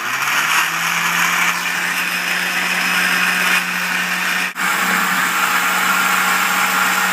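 Countertop blender running at full speed, chopping ice and fruit into a smoothie, its motor holding a steady pitch, with a momentary break about four and a half seconds in.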